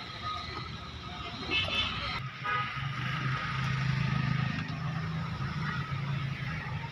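A motor vehicle engine running, its low hum growing louder from about halfway through.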